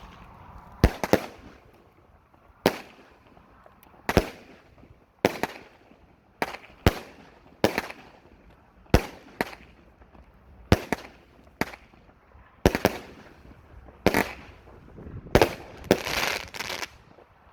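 A 16-shot, 20 mm firework battery cake firing shot after shot, a sharp bang roughly every second, some shots coming in quick pairs as a launch and its burst. Near the end there is a longer crackling stretch from the glitter and brocade effects.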